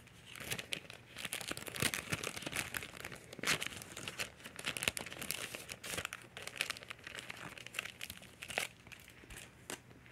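Crinkling and rustling of a clear plastic sheet and scrapbook papers being handled, in irregular crackles.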